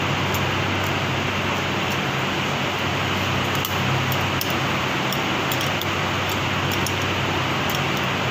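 Steady hum and hiss of running machinery in a straw-making workshop, with a few faint light metallic clicks.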